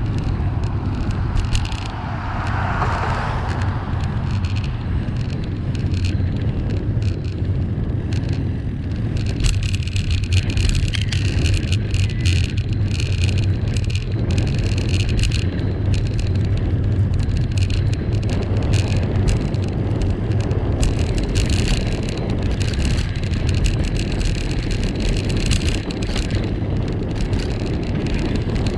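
Riding noise of a bicycle on a tarmac road: a steady low wind rumble on the bike-mounted camera's microphone with tyre and road noise, and a crackly rattle from about nine seconds in. A brief swell about two to four seconds in.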